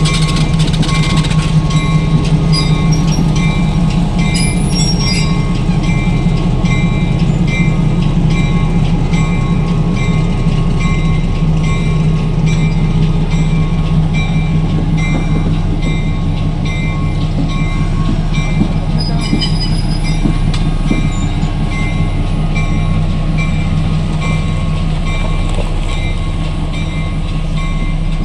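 Diesel locomotive of a Ferrovalle ballast work train running close by with a loud, steady low drone, its bell ringing at an even beat of about one to two strokes a second.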